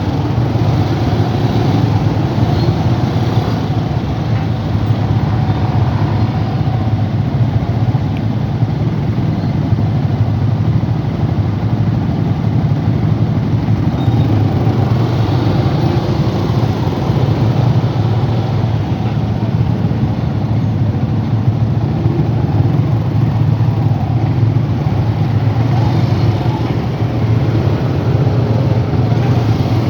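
Steady road traffic noise, motor vehicles running continuously with a constant low rumble and no single event standing out.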